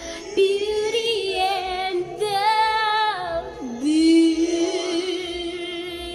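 A woman singing solo into a handheld karaoke microphone, holding long notes with a wavering vibrato, with a quick dip to a lower note a little past the middle.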